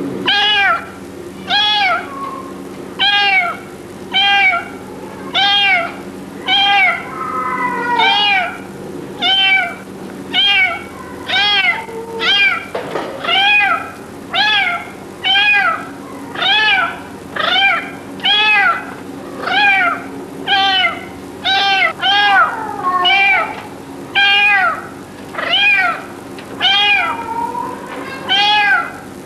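A brain-damaged six-week-old kitten meowing over and over, short cries that rise and fall in pitch, a little more than one a second without a break. Fainter calls from another cat come in now and then, over a steady low hum.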